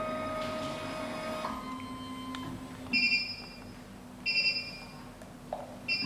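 SEC-E9 key cutting machine running its clamp calibration: a steady mechanical whine with three short electronic beeps about a second apart.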